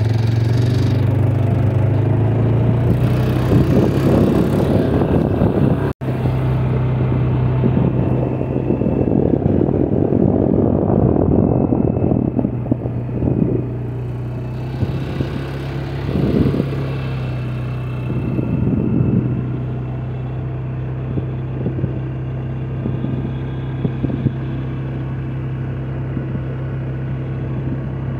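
ATV (four-wheeler) engine running at a steady speed while riding, a constant low drone. A rushing noise comes and goes over it during the first half, and the sound drops out for an instant about six seconds in.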